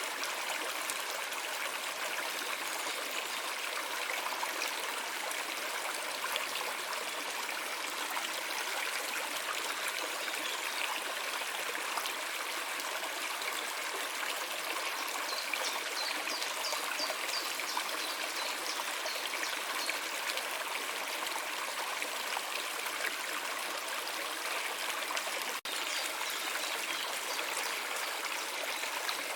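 A small stream trickling and flowing steadily. There is a short run of faint high ticks about halfway through, and a momentary dropout near the end.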